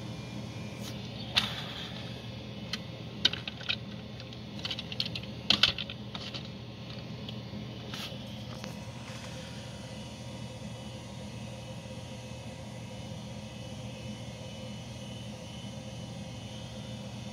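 Plastic toy train engines being handled and set down on a hard surface: a scatter of light clicks and taps in the first half, two of them sharper, over a steady low hum.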